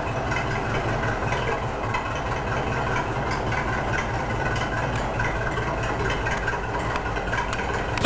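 Grey Ferguson tractor's engine idling steadily.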